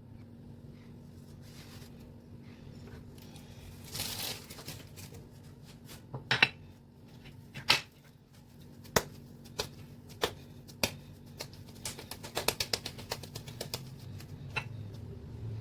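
Irregular light clicks and taps from hands and utensils at work preparing food, with a brief rustle about four seconds in and a quicker run of taps around twelve seconds in. A faint steady hum sits underneath.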